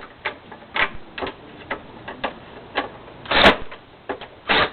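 Irregular clicks and clatter of hard plastic parts and tools being handled while a Hoover Elite upright vacuum's power head is taken apart. A louder clack comes about three and a half seconds in and another just before the end.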